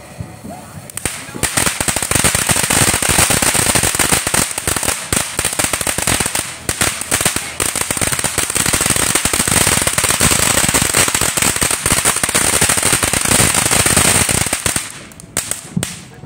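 Consumer fireworks crackling: a dense, rapid run of loud pops over a steady hiss. It starts about a second in and thins out near the end.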